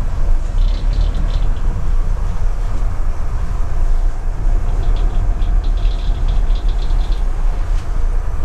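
Volvo Penta IPS pod-drive diesel engines running at low maneuvering speed under joystick control, heard inside the cabin as a steady low rumble, with faint high chirps now and then.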